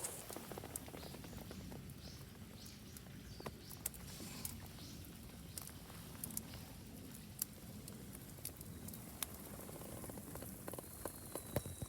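Wood fire crackling faintly, with scattered irregular pops and ticks over a low rumble.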